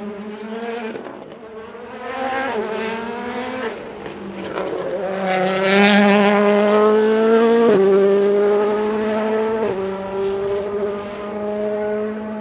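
A World Rally Car's turbocharged 1.6-litre four-cylinder engine accelerating hard through the gears, its pitch climbing and then dropping sharply at each upshift, about five shifts in all. It is loudest as the car passes about halfway through.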